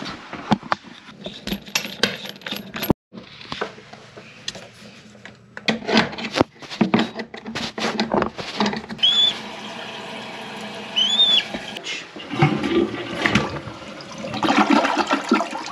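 Metal tools clicking and scraping as a toilet's braided supply line is tightened at the shutoff valve, then a newly installed American Standard toilet flushing, water rushing through the bowl in the last few seconds.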